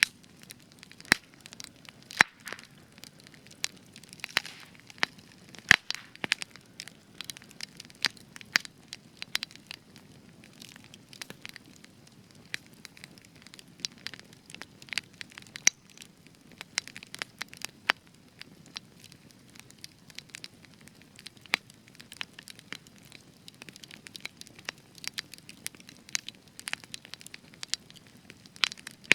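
Spruce wood burning in a campfire, crackling with irregular sharp pops and snaps over a soft steady hiss of flame. The loudest pops come about one, two and six seconds in.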